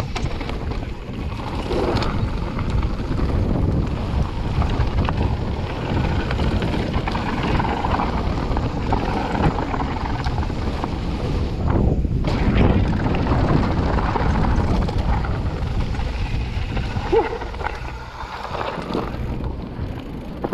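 Wind buffeting the microphone over a steady low rumble and rattle from a mountain bike riding down a dirt trail.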